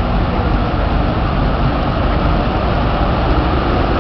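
Large Claas tractors' diesel engines running steadily as the tractors move slowly at close range.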